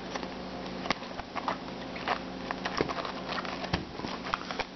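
Shrink-wrapped cardboard box of trading cards handled and turned in the hands: irregular crinkles and light taps of the plastic wrap, over a steady low hum.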